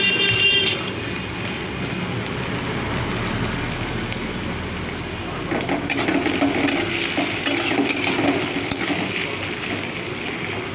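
Food frying and sizzling in a hot pan. About halfway in it is stirred, with a utensil clicking and scraping against the pan.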